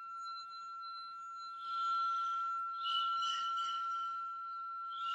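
A steady, unwavering high ringing tone, with hissing noise swelling over it twice.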